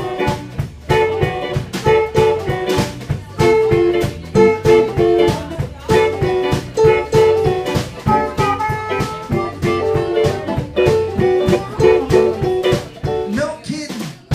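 Live blues band playing: amplified harmonica cupped against a vocal microphone over electric guitar and a steady drum beat, with a bent harmonica note about eight seconds in.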